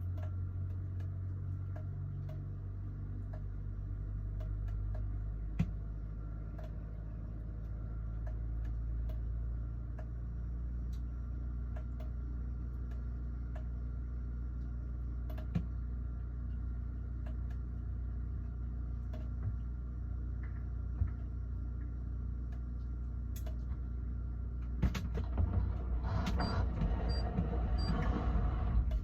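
Steady low hum of a running refrigerator, with a few sharp clicks and a stretch of rustling handling noise near the end.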